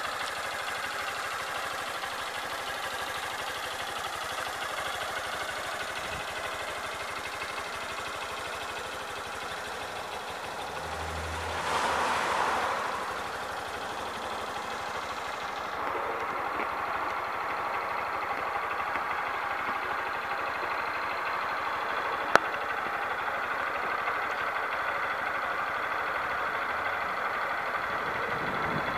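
Air-cooled single-cylinder engine of a 2012 Honda CBF125 idling steadily. A brief swell of noise comes and goes about twelve seconds in, and there is one sharp click later on.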